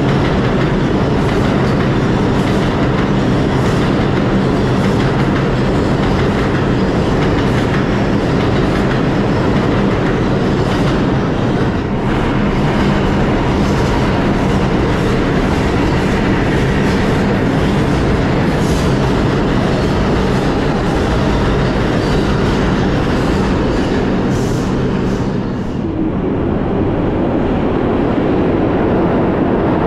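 New York City subway trains running past a station platform at speed: a steady, loud rumble with a low motor hum and repeated clicking of wheels over rail joints. Near the end the sound turns duller as the high clatter drops away.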